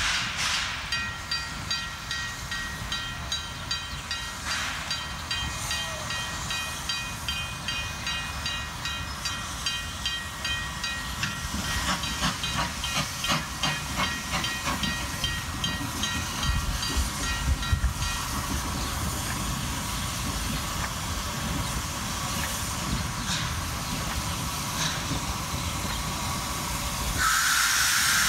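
Small NZR D-class steam tank locomotive working a train: steady steam hiss with quick, regular exhaust beats. A louder rush of steam hiss comes near the end as the engine draws close.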